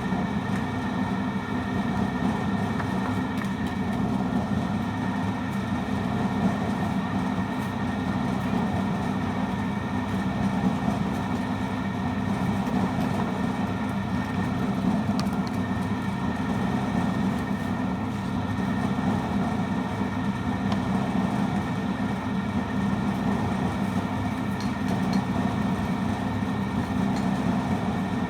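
An engine running steadily at an even speed, a constant drone that does not change.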